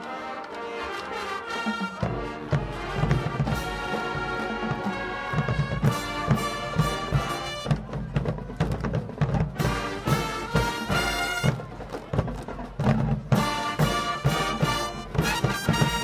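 Marching band playing a Motown arrangement: full brass with drums, the low drums and bass coming in about two seconds in and driving a steady beat.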